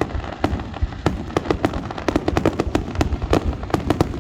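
Aerial fireworks going off in a rapid barrage: many sharp bangs and cracks a second over a continuous low rumble.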